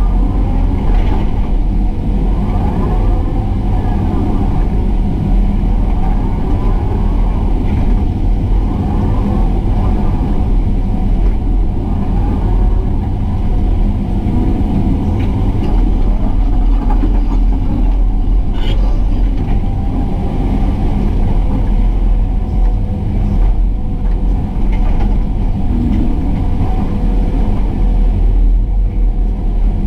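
Excavator's diesel engine running steadily, loud and low, with a few short whines rising and falling in the first few seconds. A single sharp knock comes a little past halfway.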